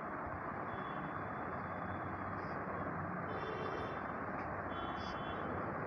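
Steady background noise, a low hiss and rumble, with a few faint, brief high-pitched tones about a second, three and a half and five seconds in.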